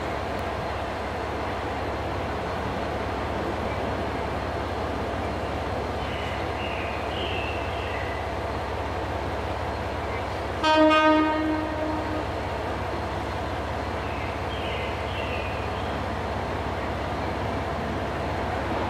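A train horn sounds one short blast about ten seconds in, clearly louder than the steady rumble of street traffic and station hum around it.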